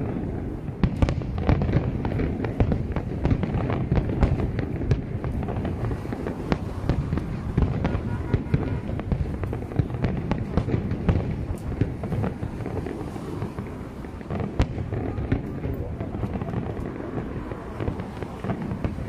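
Aerial fireworks display: a continuous heavy rumble of shell bursts, crossed by many sharp bangs and crackles, easing off a little toward the end.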